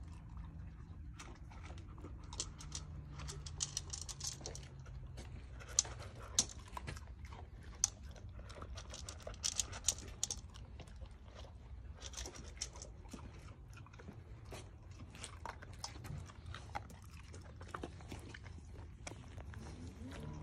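Rottweiler puppy eating dry kibble from a stainless steel bowl: many irregular sharp crunches and clicks as she chews.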